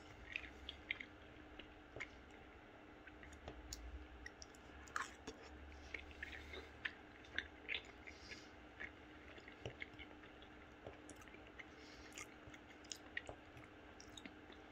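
A person chewing a mouthful of food close to the microphone, with small wet mouth clicks and squishes coming at irregular intervals.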